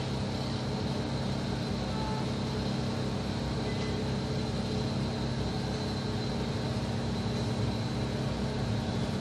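A steady mechanical hum with a faint high-pitched whine, running evenly under a soft hiss.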